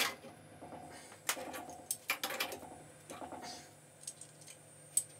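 Short bursts of metallic clicking and scraping, about a second apart, as a wrench tightens a new threaded pressure relief valve into a boiler's fitting past hand tight.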